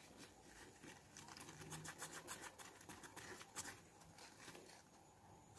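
Faint, irregular scrubbing of a tissue wiped across a Samsung Galaxy Note 8's glass screen, cleaning off adhesive residue.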